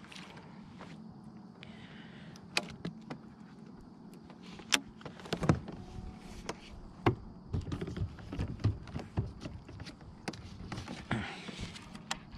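Scattered clicks and knocks of fishing tackle being handled in a kayak, with a few louder thumps around five and seven seconds in.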